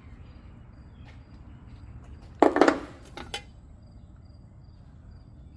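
Handling noise as the kit's accessory parts are taken out of their bag: a brief loud rustle-and-clatter about two and a half seconds in, with a shorter one just after. Faint, repeated short high chirps sound in the background.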